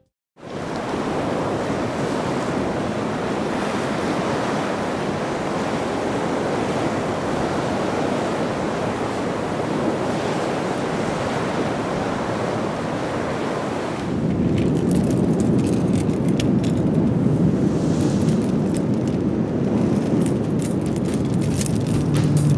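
Heavy sea surf breaking and washing over a rocky shore, a steady rushing noise mixed with wind on the microphone. It starts just after a brief silence and grows heavier and deeper about fourteen seconds in.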